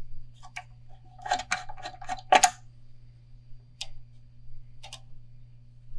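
Light clicks and knocks from hands handling a fishing rod and its thread on a rod-wrapping stand, a cluster of them about a second in and two single clicks later, over a steady low hum.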